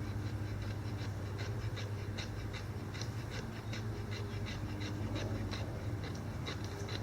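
Knife's sharp 90-degree spine scraped in quick, even strokes, about three a second, each a short rasp.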